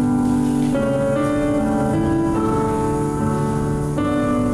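Live instrumental processional music played by the musicians in the hall: slow, held chords that change every second or so.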